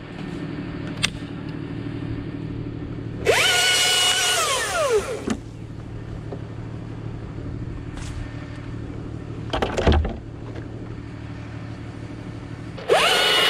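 A chainsaw revved hard twice, each burst lasting about a second and a half and falling in pitch as the throttle is let off, over a steady engine running at idle. A short thud comes between the two bursts.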